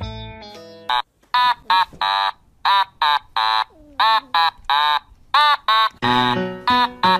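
Background music: a regular run of short, high chirping notes, each bending up and then down in pitch, about two or three a second, with a low bass line joining about six seconds in.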